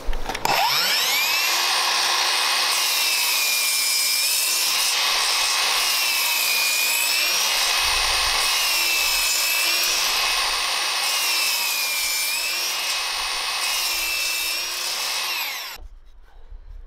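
Metabo KGS 18 LTX 216 cordless sliding mitre saw with a brushed 18 V motor spinning up and cutting into timber, making a shallow trenching cut with the depth stop set. The motor's whine sags in pitch several times as the blade is pushed through the wood. It is switched off near the end and winds down quickly.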